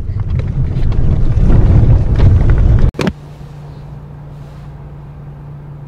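Vehicle driving a rough dirt road, heard from inside the cab as a loud low rumble. It cuts off abruptly about three seconds in, leaving a much quieter steady low hum.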